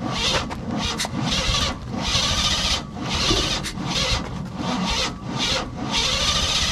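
GM starter motor cranking the engine in repeated short bursts of about a second each, then cranking without a break from about six seconds in.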